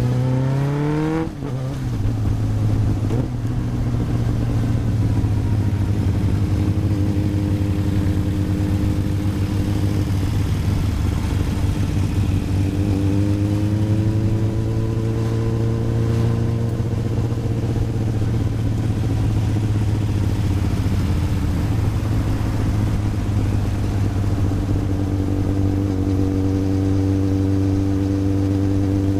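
1993 Yamaha YZF750SP inline-four motorcycle engine through a full Black Widow aftermarket exhaust with the EXUP valve deleted: a quick rising rev in the first second that drops off sharply, then steady running with a gentle rise and fall in pitch about halfway through.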